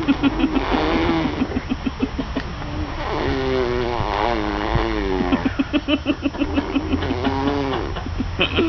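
A person making sound effects with his mouth: buzzing, engine-like vocal noises. They pulse rapidly at first, waver up and down in pitch in the middle, then pulse rapidly again.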